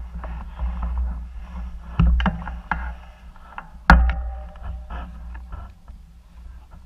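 Mountain bike rolling down a rough dirt trail: a steady low rumble of wind and ground vibration, with sharp knocks and rattles as the bike hits bumps, the loudest about two seconds in and just before four seconds in.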